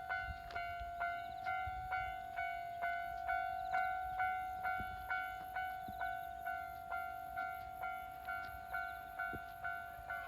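Japanese level-crossing warning bell ringing, a steady clang about twice a second, signalling an approaching train.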